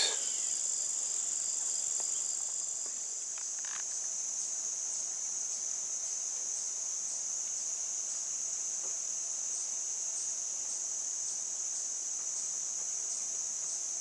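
Steady, high-pitched chorus of crickets and other singing insects.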